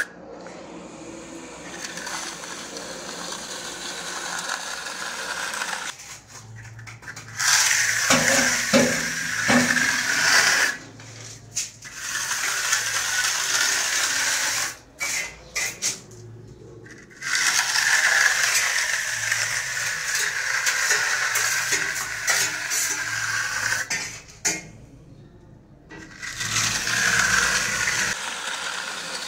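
Steel trowel scraping across a freshly applied granilite stone-chip wall coating as it is pressed and smoothed. The scraping comes in several long passes with short breaks between.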